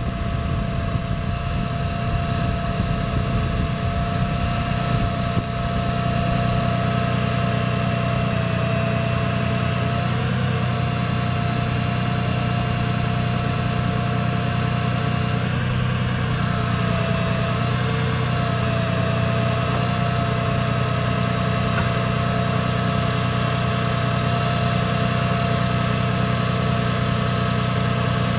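The Dodge Ram 5500's 6.7-litre inline-six turbo diesel idling steadily, with a steady whine over the engine note that wavers in pitch a few times partway through.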